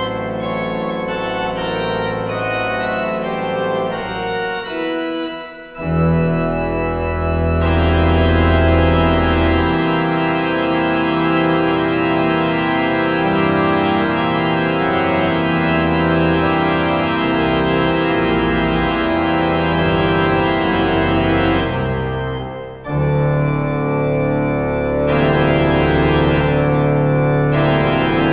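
Pipe organ playing: a moving passage, then about six seconds in a loud full chord with deep pedal bass that is held for some fifteen seconds. After a short break another loud sustained chord follows.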